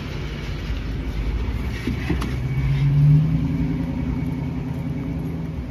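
A car passing on a city street, its engine note rising and loudest about three seconds in, over a steady low traffic rumble.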